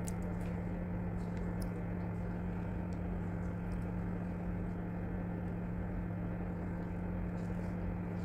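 A steady low mechanical hum with a faint hiss under it, and a few faint soft ticks.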